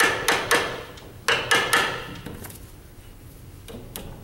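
Chisel being struck to split a glued-up square poplar blank apart along its joint: sharp knocks in quick groups of three, then a few lighter taps and a single knock near the end.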